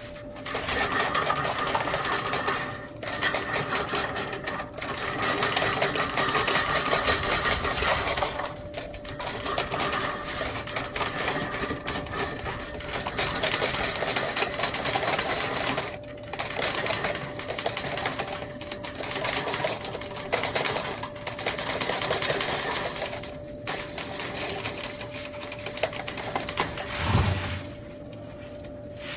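Steel fish tape clattering and clicking rapidly as it is worked in and out of a dryer vent duct and its reel, in spurts with short pauses.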